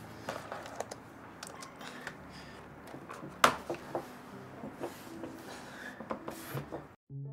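Light rustling and scattered small clicks and taps of things being handled on a table, with one sharp click about three and a half seconds in. Near the end the sound cuts off and piano music begins.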